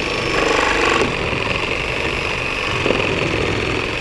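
Skil 7.5-amp corded reciprocating saw with a Milwaukee nail-embedded wood blade running steadily while it cuts through the nails holding a pallet deck board to its stringer, so the board comes loose without punching the nails out.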